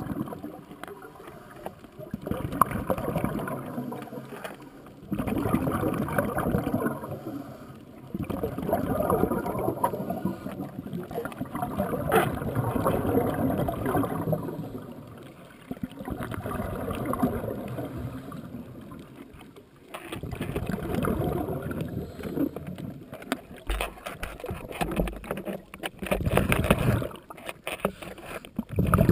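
Scuba diver's exhaled air bubbling out of the regulator underwater, a gurgling rush of bubbles about every three to four seconds with quieter gaps between, in the rhythm of the diver's breathing.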